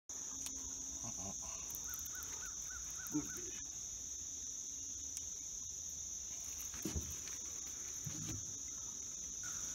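Steady, high-pitched insect chorus (crickets or similar) droning without a break, with a short run of about six chirps about two seconds in and a couple of soft knocks.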